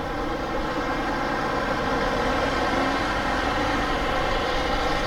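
Steady machinery drone with a hum of several pitches, growing slightly louder early on: a cruise ship's engines and ventilation running at the berth before departure.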